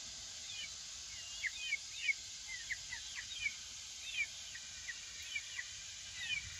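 Young layer chickens peeping, a scatter of short, quick chirps over a steady faint hiss.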